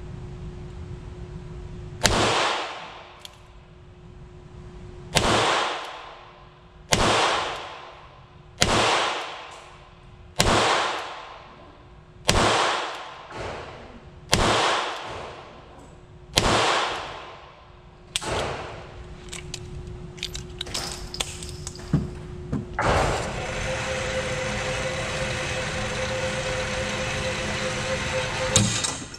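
Ruger LCRx .22LR revolver fired about eight times, a shot every two seconds or so, each report ringing out in the indoor range. A few light clicks follow, then from about two-thirds of the way in an electric target carrier motor runs steadily as it brings the target back.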